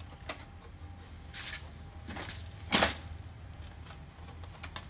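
Plastic clicks and scrapes from hands working on the rear cover and parts of an HP Color LaserJet Pro M181fw printer: a click about a third of a second in, a brushing scrape around a second and a half, and one sharp clack, the loudest, just before three seconds.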